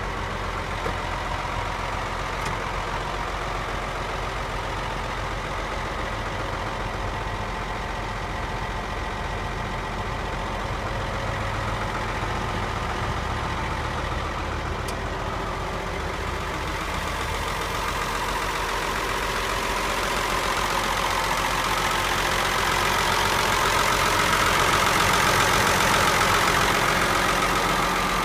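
Ford TW-5 tractor's six-cylinder diesel engine idling steadily, getting louder over the last third.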